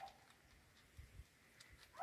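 Mostly near silence, with a short faint kitten mew right at the start. About a second in come a couple of soft low thumps and a few faint ticks.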